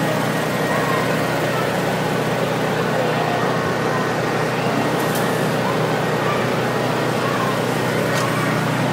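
Steady low mechanical hum over outdoor street noise, with faint distant voices.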